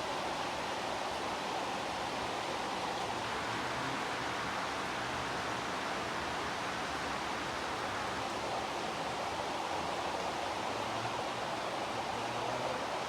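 Steady heavy rain, an even hiss of rainfall without breaks or distinct drops.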